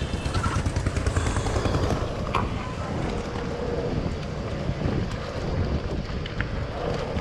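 Wind buffeting the microphone of a camera on a moving Cannondale Bad Boy bicycle, over rumbling tyre noise on a rough, broken road, with a few short clicks.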